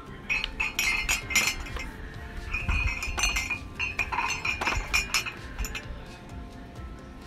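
Ceramic mugs clinking against one another and the shelf as they are handled and set back. A quick run of knocks, some with a short bright ring, stops about six seconds in. Background music plays underneath.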